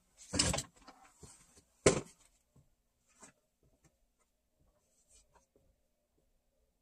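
A short rustling scrape, then a sharp knock just before two seconds in, followed by a few fainter scattered knocks as objects are handled and set down.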